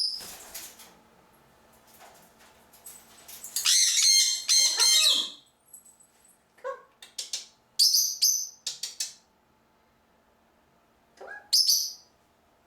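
Pet birds calling in bursts: a loud run of harsh squawks and chirps about four seconds in, shorter high calls a few seconds later, and one more near the end.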